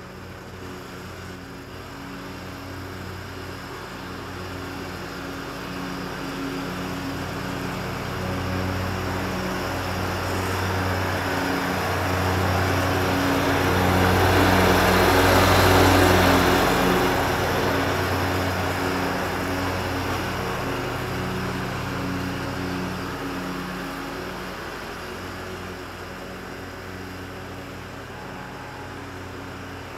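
Exmark zero-turn riding mower running steadily with its engine and cutting deck as it approaches, passes close by about halfway through, and moves away again, growing louder to a peak and then fading.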